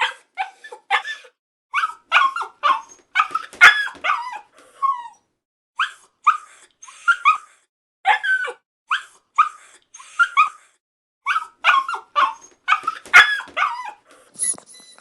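A puppy crying: rapid, high-pitched whimpers and yelps in runs of short cries, with brief pauses between runs.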